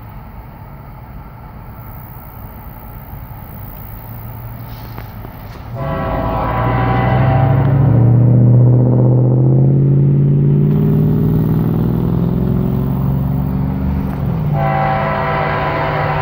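Diesel freight locomotive's multi-chime air horn sounding over the rumble of a passing freight train: a long blast starting about six seconds in that drops in pitch, a brief break, then a second blast near the end.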